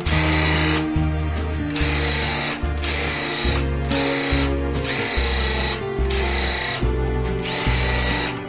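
Background music with a steady beat and a bass line that changes note about every second.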